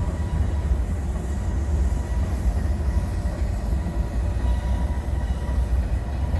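Norfolk Southern freight train rolling past with a steady, heavy low rumble and faint steady tones above it.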